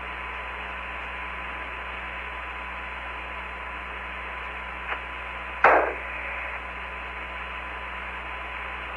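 Open channel of the Apollo 15 air-to-ground radio link: steady static hiss with a faint steady tone and hum under it. About five seconds in comes a small click, then a short loud crackle.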